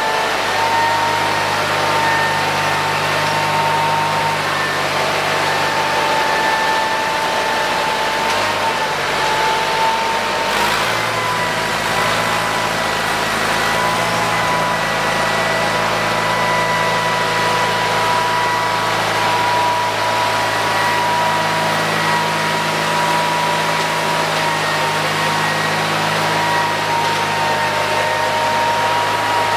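Garden tractor engine running steadily, with a steady high-pitched whine over it that steps slightly higher about ten seconds in.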